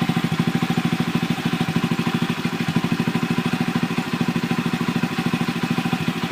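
Honda Little Cub's small single-cylinder four-stroke engine idling steadily through a Takegawa Bomber aftermarket muffler, with an even, rapid beat of exhaust pulses.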